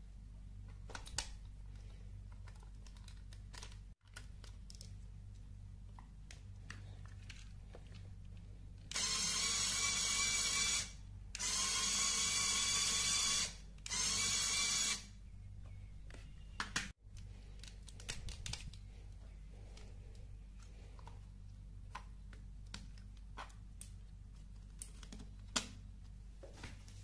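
Lego Technic-type large motor driving the test rig's gear train, run three times for about two seconds each with short breaks, a steady whine that starts and stops sharply. Light clicks of plastic parts being handled before and after.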